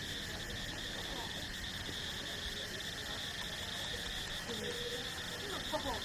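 Steady, shrill evening chorus of insects and frogs in tropical vegetation, holding at two high pitches without a break.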